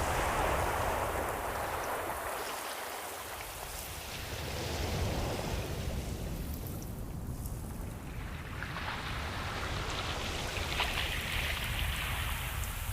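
Ocean surf: a hissing wash of waves that swells at the start, ebbs, then builds again to a second surge over a steady low rumble.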